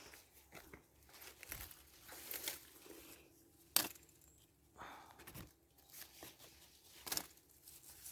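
Quince tree leaves and twigs rustling and crackling irregularly as the fruit is picked by hand, with a sharp snap about four seconds in and a smaller one near the end.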